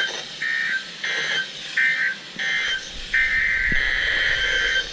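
Emergency Alert System SAME digital data bursts from a NOAA weather radio. Short bursts come about every 0.7 s, typical of end-of-message codes, and a longer burst about three seconds in begins the header of the next warning.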